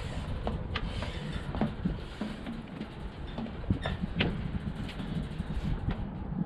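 Footsteps knocking and clanking irregularly on a steel fire tower's wooden stair treads and metal frame, over a low rumble of wind on the microphone.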